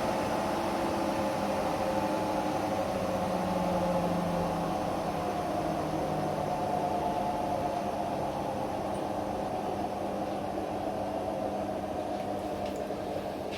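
Washing machine's motor and empty drum running on a spin cycle: a steady whir with a whine whose pitch drifts slowly.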